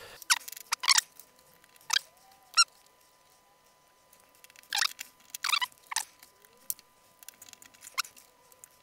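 Small hand tools and the parts of a dismantled 2.5-inch hard disk being handled, with a screwdriver brought to the platter's spindle clamp: a scattering of about eight short, sharp metallic clicks and squeaks.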